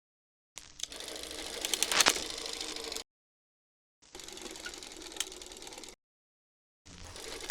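Film projector sound effect: a mechanical rattle with hiss and scattered clicks and pops, like film running through a projector. It comes as three separate clips, each cut off into dead silence, with the loudest clicks about two seconds in.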